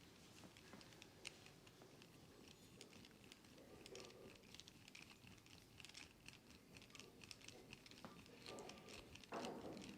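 Faint head massage: a quick, irregular patter of soft clicks and rustles from hands working over hair and scalp, with a louder rubbing sound about nine seconds in.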